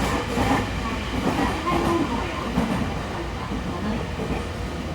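Cabin running noise of a JR East E217-series commuter train under way: a steady rumble of wheels on rail and car body, with a voice speaking over it.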